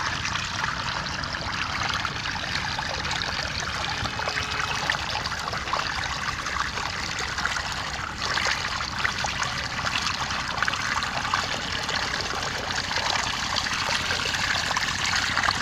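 Water running and trickling steadily through a channel cut in a mud bank, where a net is set to catch the fish carried along by the flow.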